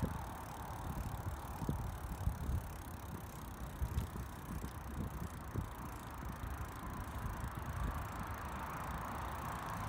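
Bicycle rolling along a concrete path: steady tyre and road noise over a low rumble, with irregular small knocks and rattles from the bike.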